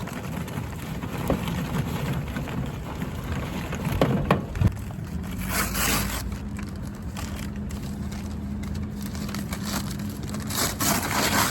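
Charcoal coals being handled in a grill: crunching, with a few sharp clinks about four seconds in. A steady low rumble of wind on the microphone runs underneath.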